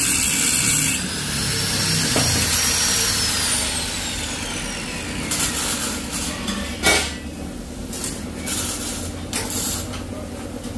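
Angle grinder disc cutting into the steel shell of a Honda Vario 125 motorcycle muffler for about a second, then switched off, its whine falling steadily in pitch as the disc spins down. Several sharp metal knocks and clanks follow as the muffler and grinder are handled and set down.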